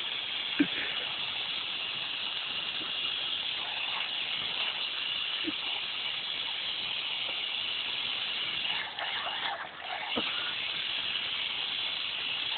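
Water spraying from an outdoor wall tap, a steady hiss, while a dog bites and drinks at the jet.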